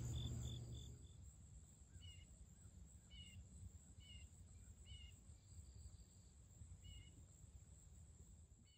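Background music fades out within the first second, leaving faint outdoor ambience. A low rumble runs under about five short, high two-note chirps spaced roughly a second apart.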